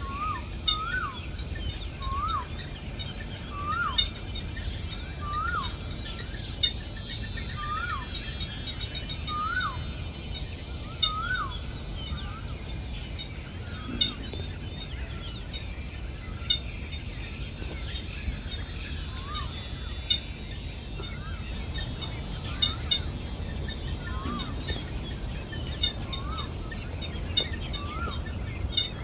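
Forest ambience: a bird repeating a short rising-then-falling call every second or two, louder in the first half and fainter later, over a steady high chorus of crickets and cicadas. Sharp clicks stand out every few seconds.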